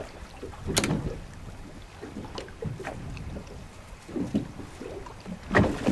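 Wind and water noise aboard a small boat drifting at sea, with a sharp knock about a second in.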